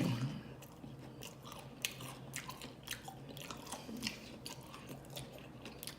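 Close-up chewing of loaded Doritos nachos: irregular crisp crunches of the tortilla chips between the teeth.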